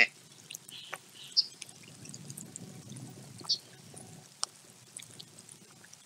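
Faint trickling and splashing water, with scattered ticks and short high bird chirps, the loudest about one and a half and three and a half seconds in.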